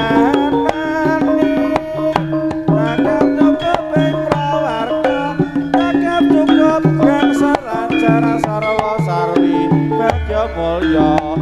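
Live jaranan accompaniment from an East Javanese ensemble: kendang hand drums play a fast, busy rhythm under a sustained, wavering melody. A deep low tone comes in near the end.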